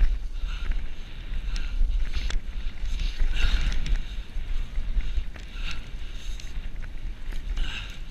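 Wind buffeting the microphone during a fast ride down a wet dirt track, a heavy steady rumble, with short hissing bursts about once a second from the wet ground rushing past.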